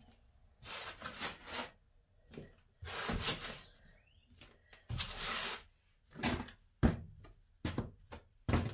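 Compost crumbled and sprinkled from the hands onto small black plastic plant pots in short rustling bursts, topping up freshly sown seed pots. A few sharp knocks near the end as the plastic pots are handled.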